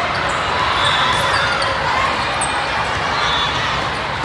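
Volleyballs being hit in a busy tournament hall: scattered sharp ball contacts over a steady din of many voices and play on other courts.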